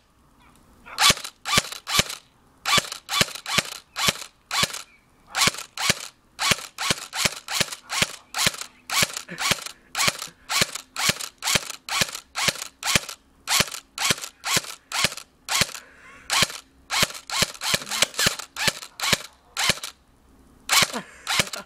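ICS CXP electric airsoft rifle firing single shots in quick succession, about two a second, with a short pause near the end.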